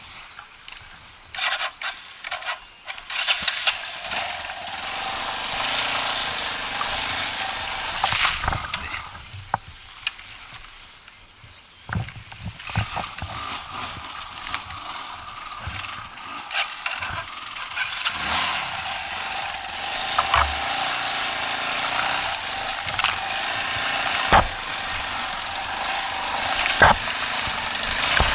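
Off-road motorcycle engines revving away from the microphone, rising and falling in waves, over a steady high insect buzz, with scattered sharp clicks and knocks.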